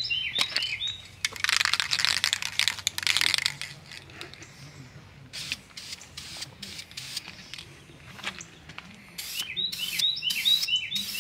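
Aerosol can of Krylon camouflage spray paint rattling for a couple of seconds as it is shaken, with scattered clicks after. Near the end, short bursts of spray hiss as the sand-coloured base coat is misted on. A small bird chirps repeatedly at the start and again near the end.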